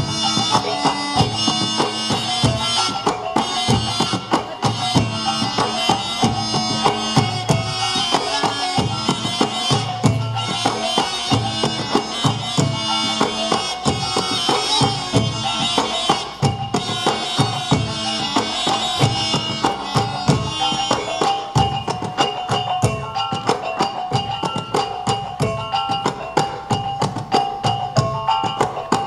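Traditional West Sumatran ensemble music: a wind instrument playing held notes over fast, continuous drum and percussion strikes.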